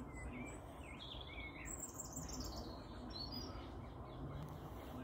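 Small birds chirping, a run of short high calls and quick rising and falling notes in the first half, over a steady low rumble.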